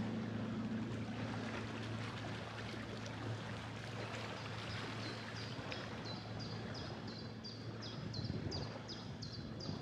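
A bird calling in a quick, steady series of short, high notes that fall in pitch, about two to three a second, starting a few seconds in. Under it is a steady wash of water and wind noise as the boat glides along.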